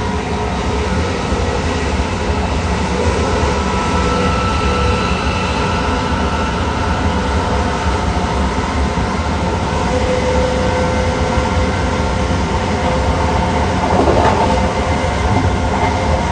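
Heathrow Express Class 387 Electrostar electric multiple unit running at speed on its way up to 110 mph, heard from on board: a steady, loud rumble of wheels on rail with the traction motors' whine held at several steady pitches. A short dip and rise in pitch comes about fourteen seconds in.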